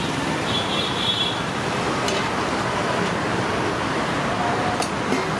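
Steady roadway traffic noise, with a couple of faint clinks of steel utensils and a brief high tone about a second in.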